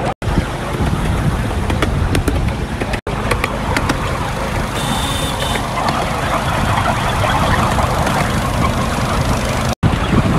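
Ride-on miniature railway train running along its track, heard from a passenger seat: a steady rumble of wheels on rails with scattered clicks and some wind on the microphone.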